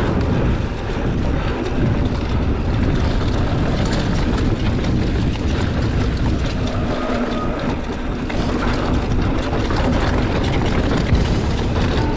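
Wind buffeting the microphone and a mountain bike's knobby tyres rolling fast over a dirt and rock trail on a descent, with small knocks and rattles from the bike over rough ground.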